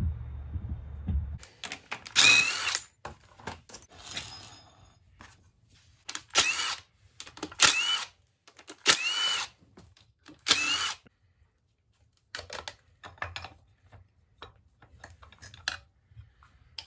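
DeWalt cordless impact driver spinning out the side-cover bolts of a Yamaha 350 ATV engine: five short bursts, each rising and then falling in pitch as the trigger is squeezed and released. Light clicks of parts being handled follow.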